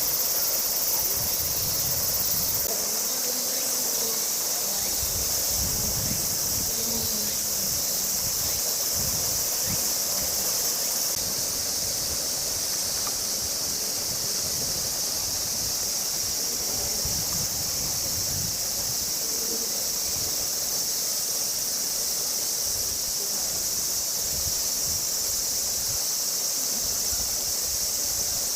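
Steady, shrill chorus of summer cicadas, an unbroken high-pitched drone that holds at an even level throughout.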